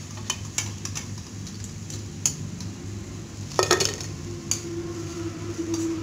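Wire spider skimmer clinking against a steel kadai as fried bondas are lifted out of hot oil: a few sharp metal clicks, then a louder clatter about three and a half seconds in, with oil sizzling underneath.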